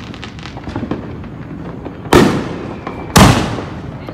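Aerial fireworks exploding: two loud booms about a second apart, each trailing off, with fainter pops and crackles before them.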